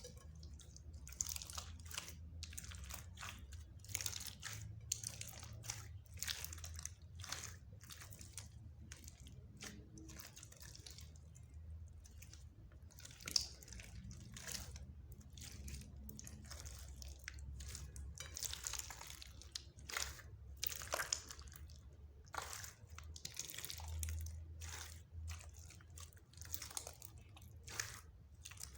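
Slime being kneaded and stretched by hand, giving a continuous run of irregular sticky crackles, pops and squelches, with a few sharper pops scattered through.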